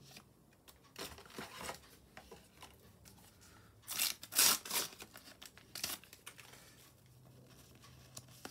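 A Panini sticker packet being torn open, its wrapper crinkling: a short rustle about a second in, the loudest tearing around four to five seconds in, and a last brief rustle near six seconds.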